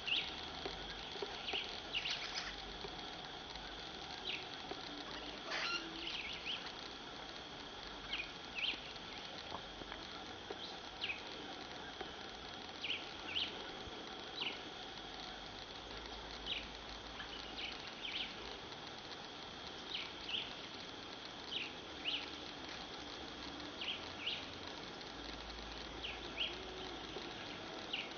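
Steady high-pitched insect trill with short, falling high chirps repeating every one to two seconds.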